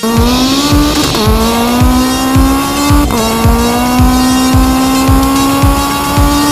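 Modified car engine at high revs under full-throttle acceleration, going through two quick upshifts about 1 and 3 seconds in. Each shift brings a sudden drop in pitch, followed by a steady climb as the car pulls past 200 km/h. A faint steady music beat runs underneath.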